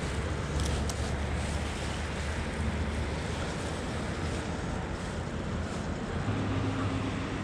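Low, steady drone of road traffic, with a hiss of wind over it; the drone shifts in pitch about six seconds in.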